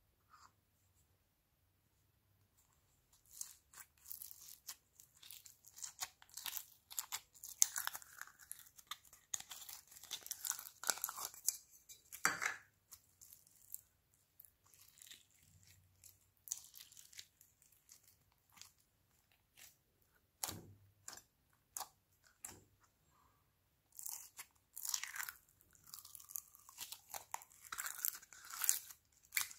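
Slime being squeezed and pulled by hand, making sticky crackling clicks and pops. It starts about three seconds in, comes thickest in the first half and again near the end, when foam slime packed with small foam beads is being worked.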